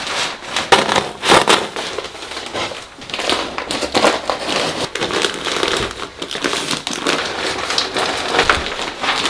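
Roll of paper-faced fiberglass insulation being cut and pulled about by hand, its paper facing and batt rustling and crackling irregularly.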